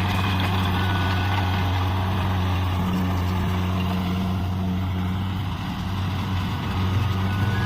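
Kubota DC70 combine harvester's diesel engine running steadily with an even, low hum.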